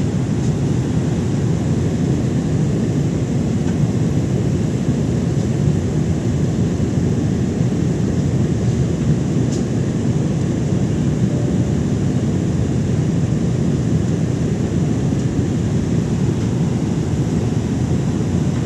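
Steady airliner cabin noise heard from a passenger seat: the low, even rush of the jet engines and airflow as the aircraft descends toward landing.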